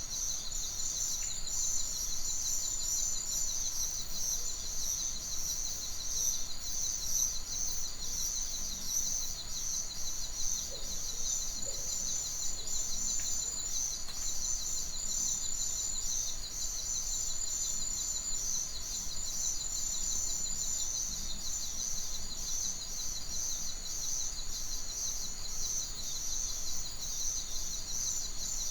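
Nature ambience: a continuous high-pitched chorus of rapid, pulsing trills, with birds calling.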